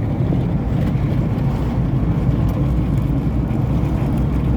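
Moving car: a loud, steady rumble of road and wind noise.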